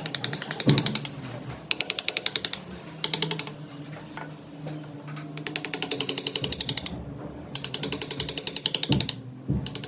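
Wood lathe running with a steady motor hum, while a turning tool cuts the spinning redwood in about five bursts of rapid, even ticking, the tool striking the uneven surface on each turn.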